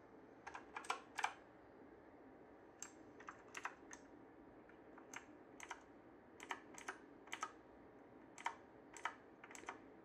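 Keys being pressed one at a time on a Havit HV-KB378L mechanical keyboard: sharp, separate clicks in small irregular groups, about twenty in all, some in quick pairs.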